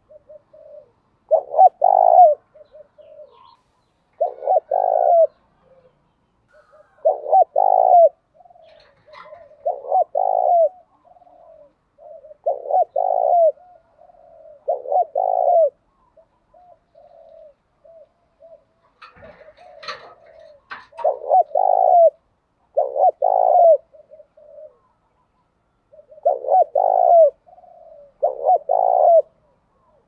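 Spotted dove cooing over and over: soft lead-in notes, then loud, deep coos, usually in pairs, every two to three seconds. The cooing pauses for a few seconds about two-thirds of the way through, with a short scratchy noise, and then starts again.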